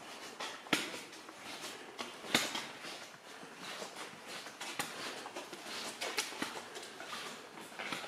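Footsteps on an icy cave floor: irregular crunches and scuffs, with a few sharper steps standing out.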